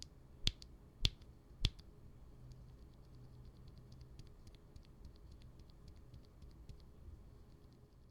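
IDOBAO x Kailh Elf Green ultra-silent linear mechanical switches being pressed: four sharper clicks in the first two seconds, then a long run of faint, rapid, muted ticks.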